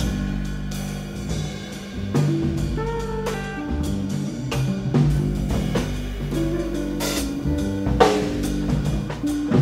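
Background music with a drum kit and sustained low bass notes.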